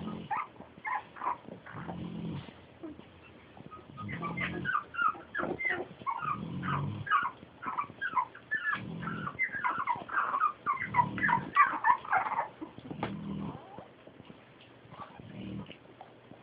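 Jack Russell terrier puppies whimpering and squealing in many short high squeaks, thickest through the middle and thinning out near the end. Beneath them a pig snores in slow, regular breaths about every two seconds.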